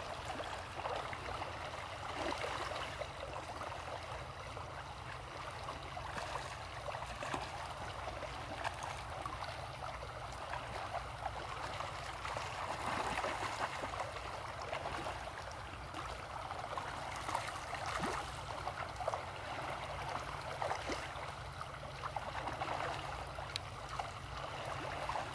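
Shallow stream flowing steadily, with occasional brief splashes from crowded fish thrashing at the surface.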